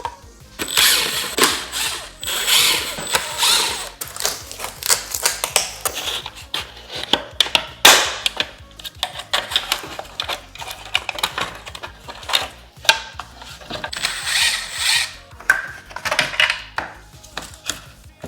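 Hands and tools working on a car door mirror and its plastic trim: irregular clicks, knocks and scraping.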